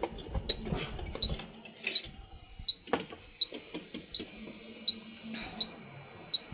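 Light clicks and handling noise of small tools on a phone-repair bench as a capacitor is about to be removed from the board. A faint high pip repeats about every 0.7 seconds, and a low steady hum comes in about halfway.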